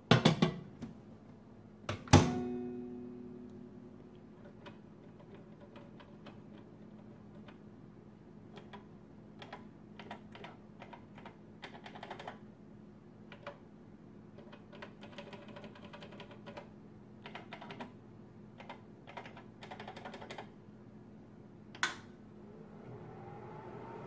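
A 1981 Roper microwave oven being set going: a glass measuring cup set down inside with a few clicks, the door shut with a loud clunk that rings briefly, then many small clicks from the push-button control panel as a time is keyed in. A sharper click comes near the end, and the oven starts running with a hum that rises in pitch.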